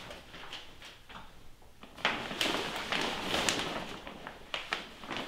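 Clear plastic sheeting crinkling and rustling as it is pulled up and hung, with irregular sharp crackles starting about two seconds in.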